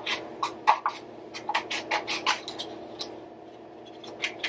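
Scissors snipping through a sheet of colored paper: a quick run of short cuts in the first couple of seconds, then a pause, then a couple more snips near the end.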